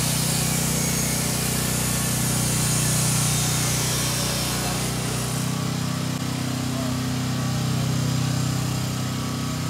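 A motor running steadily, a low even drone that holds without a break; a faint hiss swells in the first half.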